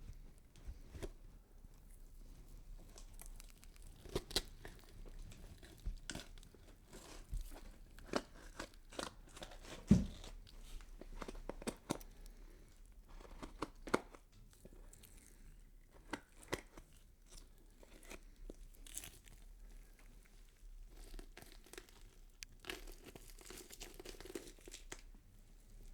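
Horror sound effect of skin being cut and peeled: irregular tearing and crackling with sharp snaps scattered throughout. The loudest crack comes about ten seconds in, and a longer, denser stretch of tearing comes near the end.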